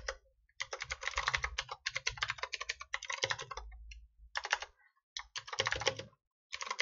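Typing on a computer keyboard: fast runs of keystrokes broken by short pauses.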